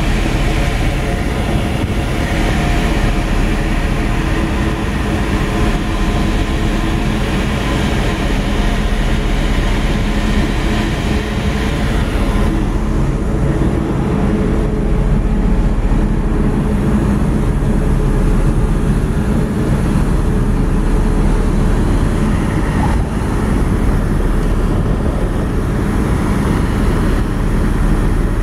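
Tugboat's diesel engines running steadily, a low drone heard on the tug's own deck over a hiss of wind and sea; the hiss falls away about halfway through.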